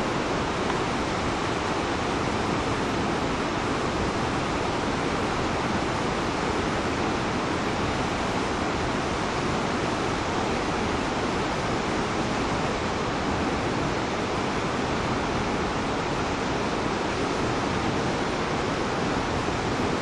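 Steady, unbroken rush of the 90-metre Santa Rosa waterfall on the Santiago River and the churning, turbulent river water at its base.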